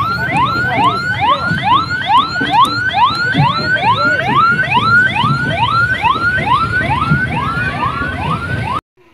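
Electronic siren on yelp, a fast train of short rising whoops at about three a second over a low rumble, cutting off abruptly near the end.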